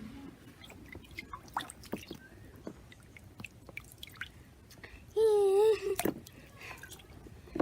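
Small water splashes and drips with plastic bath toys lightly knocking, as they are handled in a tub of water. A short, wavering high vocal sound comes about five seconds in.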